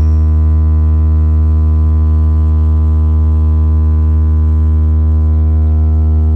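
JMD Sound DJ system's bass speakers playing one steady, loud low bass tone, held at an even level for a bass sound check.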